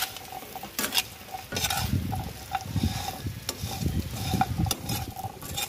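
A metal ladle stirring and scraping chunks of coconut around a frying pan, with the light sizzle of frying underneath. The ladle clicks against the pan several times.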